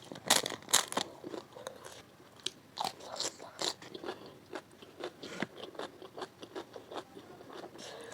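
Close-miked eating: a person biting and chewing crisp food, with sharp crunches clustered in the first second, then irregular smaller chewing clicks.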